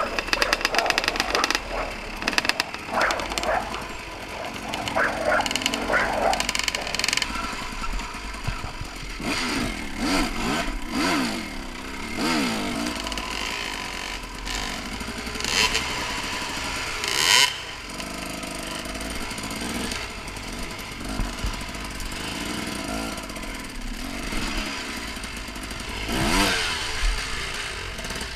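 Husaberg TE 300 two-stroke enduro motorcycle engine running on a trail ride, the revs rising and falling again and again as the throttle is worked.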